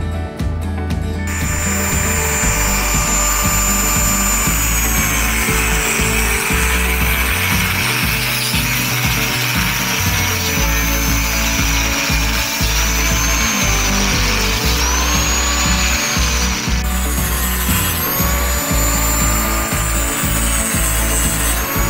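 Angle grinder cutting through steel welded wire mesh, starting about a second in. Its whine dips and rises as the disc bites each wire. Background music plays throughout.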